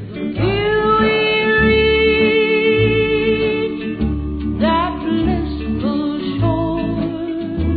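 Background music with guitar and an alternating bass line, one long note held through the first few seconds.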